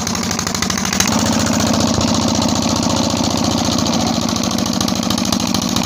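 Single-cylinder Peter (Petter-type) diesel engine running steadily with even firing beats, a little louder from about a second in. It runs on a newly fitted injector nozzle and fuel-pump plunger.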